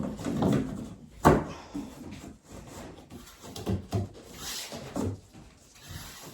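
Flat-pack drawer parts being handled and fitted together: a sharp knock about a second in, then several softer knocks and clicks and a brief scraping rub.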